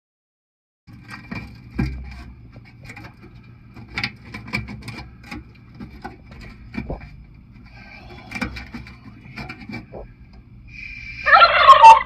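Fingertip scratching and picking at flaking rust in a microwave's rusted-through roller track: irregular small clicks and scrapes over a steady low hum. Near the end, a loud warbling pitched sound lasting under a second.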